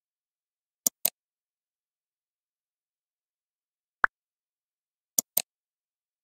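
OptiKey on-screen keyboard feedback sounds over dead silence: a pair of sharp clicks about a second in, a single short blip about four seconds in, then another quick pair of clicks just after. They play as a key is selected by gaze and a left mouse click is made.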